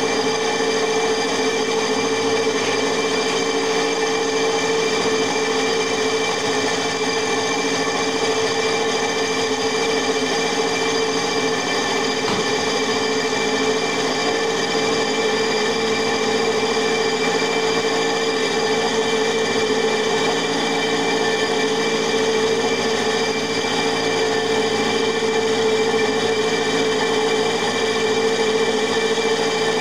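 Milling machine running steadily, its end mill taking a light 0.1 mm finishing cut along the edge of the cylinder cutout in a locomotive frame plate. The motor, spindle and cut make an even, unchanging whine with a clear steady tone.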